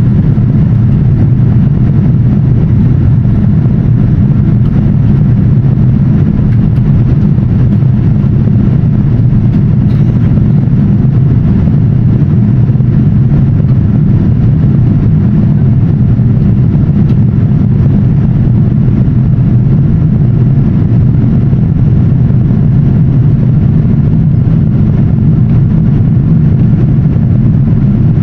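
Steady, loud rumble of engine and airflow noise inside the cabin of a Boeing 787-10 airliner, low and even throughout.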